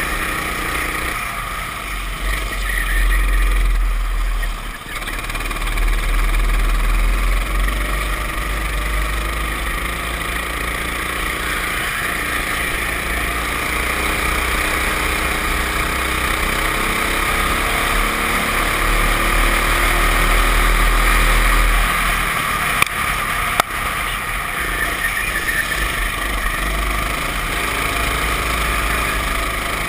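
Racing kart engine running hard at speed under a heavy low rumble, its pitch rising and falling. Two sharp knocks a little over two-thirds of the way through.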